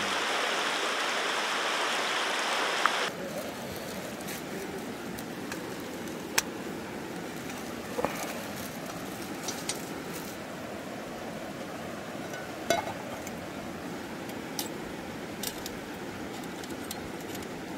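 A stream flowing over rocks, heard close for about three seconds, then cut to a quieter river in the background. Over it come several sharp metal clicks and clinks as a backpacking canister stove is handled on its gas canister, its pot supports folded out, on a metal mesh table.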